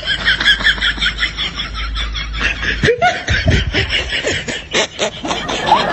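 High-pitched rapid laughter: a quick, even run of short laughs, about six a second, for the first three seconds, then looser, scattered laughing.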